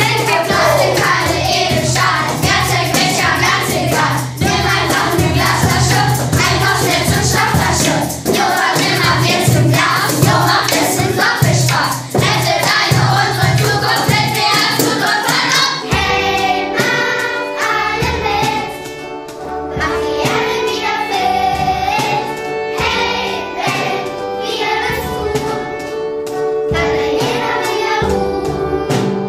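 A group of children singing a pop song, backed by electric guitar and bass guitar. About halfway through, the music changes from a dense section with a steady beat to a lighter one with longer held notes.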